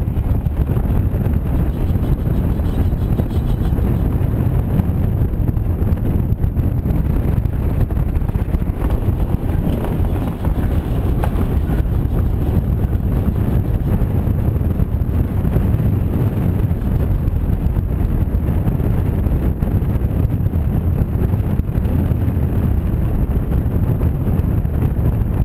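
Wind buffeting the microphone of a camera mounted on a pedal car moving at racing speed, mixed with the rumble of its wheels on the tarmac track. The result is a steady, low noise.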